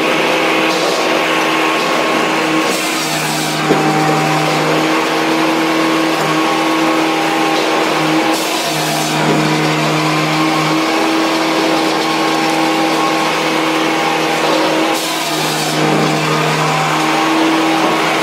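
Firewood processor running: a steady machine hum with a low drone that cuts out and comes back several times. Three short bursts of hiss come through, about three, eight and fifteen seconds in.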